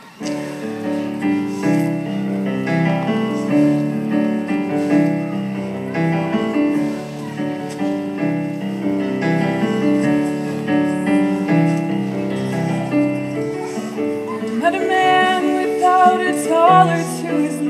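Keyboard playing a sustained chordal introduction, the chords changing about every second; about three-quarters of the way in, a girl's voice starts singing over it through a microphone.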